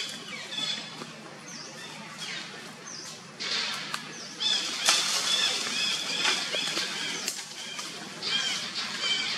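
Infant long-tailed macaque giving rapid, repeated high-pitched squeals, which get louder and come thick and fast from about halfway through, over the rustle of leaves and branches.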